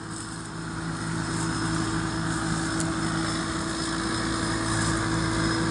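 A Thai Seng rice combine harvester's Hino J08C turbo-diesel engine running steadily under work, growing a little louder over the first second or so.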